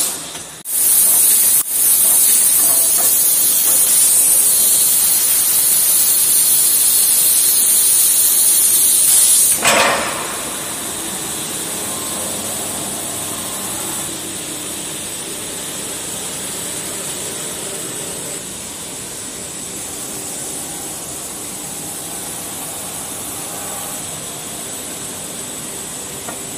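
Sanding line for calcium sulphate floor panels running. A loud, steady air hiss lasts for about the first ten seconds, then drops to a lower, steady machine hum with faint tones as the panels feed through the sanding machine.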